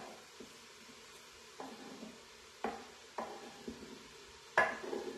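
A wooden spoon knocks against the rim of an Instant Pot's stainless steel inner pot as chopped mushrooms are scraped in from a cutting board. There are about five sharp knocks with a short ring, the loudest one near the end.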